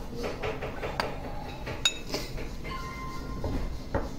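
White ceramic Chinese soup spoon clinking against a plate of fried rice as it scoops: a few sharp clinks, the loudest just under two seconds in, ringing briefly.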